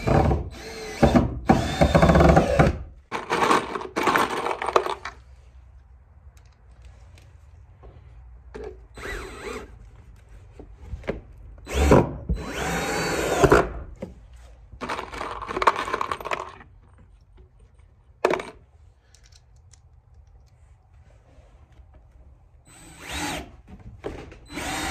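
Cordless drill driving screws into a 6x6 pressure-treated timber sill. It runs in repeated bursts of one to two seconds with short pauses between, about eight in all.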